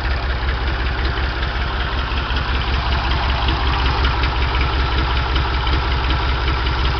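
Ford 335 industrial tractor's diesel engine idling at low throttle with a steady, even beat, freshly started after an in-frame rebuild and running without knocks.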